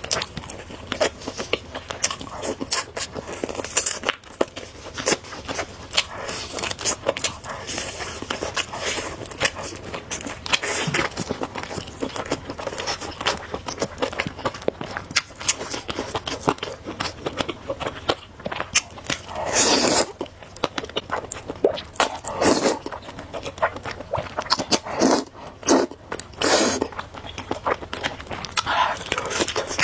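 Close-miked eating of noodles: steady chewing with many small wet clicks, and a few longer slurps in the second half.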